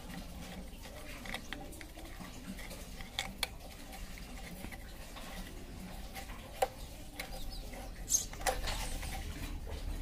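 Scattered small clicks and taps of hand work as a motorcycle's front brake cable, its spring and rubber boot are fitted: two close together a few seconds in, one more a little past halfway, and a few louder ones near the end.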